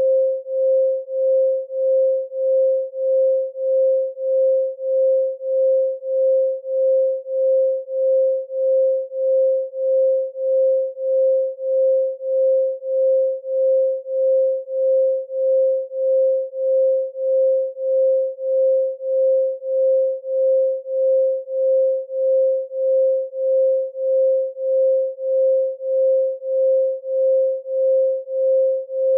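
A pure 528 Hz sine tone, the solfeggio 'love frequency', pulsing evenly in loudness about three times every two seconds.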